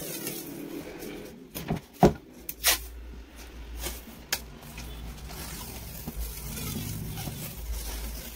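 Masking tape being pulled off its roll and pressed around the toe of a cricket bat by hand: a few short sharp rips and knocks in the first half, the loudest about two seconds in, then a low steady rubbing rumble as the tape is smoothed down.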